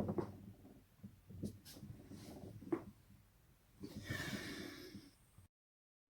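A person breathing while twisting their neck, with a few small clicks from the neck joints and a loud breathy exhale about four seconds in. It cuts off abruptly near the end.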